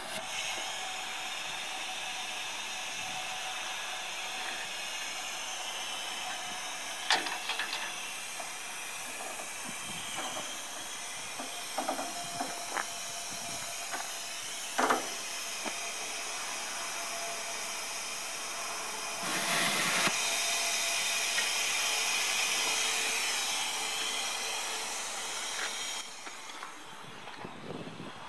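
Steady hiss of compressed air, louder for several seconds past the middle, with a few sharp clicks as air-hose couplings of a tire inflation system are fitted to the truck's tire valves.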